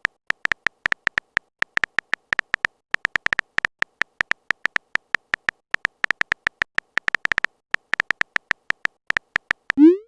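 Typing sound effect of a phone messenger: rapid, uneven short clicky beeps, several a second, with a short rising swoop just before the end.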